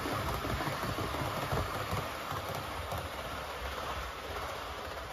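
Model high-speed train running fast past along the layout track: a continuous rattle of wheels over the rails that slowly fades as it moves away.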